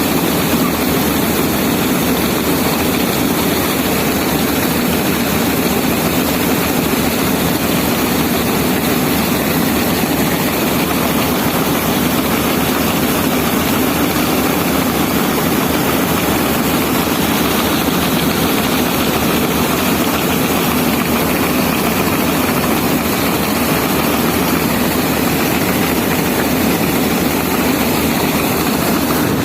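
Combine harvester running steadily while cutting wheat: a constant loud engine and machinery drone with no change in pace.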